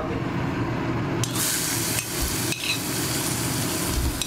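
Chopped onion going into hot mustard oil in a kadai and sizzling, the hiss starting suddenly about a second in and holding steady, with a couple of spoon clinks against the plate and pan.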